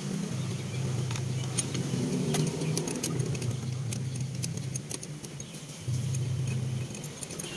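Small metallic clicks and light jingling as hands work the hoses and fittings around a carburetor. A low steady hum runs underneath, drops out for a moment past the middle, then cuts back in suddenly.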